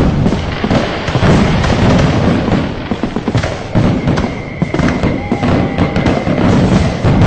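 Firecrackers and fireworks going off in a dense, continuous barrage of bangs and crackles, with a steady high whistle running through the second half.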